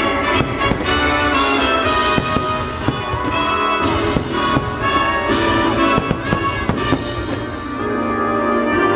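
Orchestral show music with brass playing, with several firework shells popping and crackling through it.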